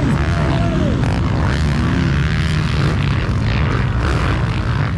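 Motocross bike engines running hard, their pitch rising and falling as they rev through the gears.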